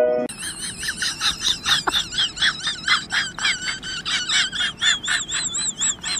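An animal calling rapidly and repeatedly in high, wavering chirps, about three to four a second, with one downward squeak about two seconds in.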